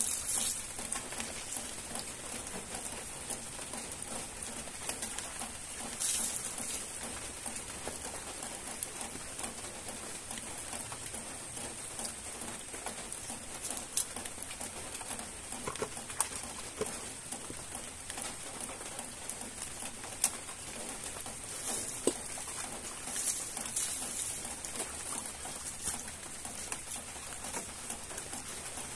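Light rain pattering steadily on the garden. Water poured from a small pot splashes over freshly picked vegetables being washed by hand, loudest near the start, about six seconds in, and again a little past twenty seconds.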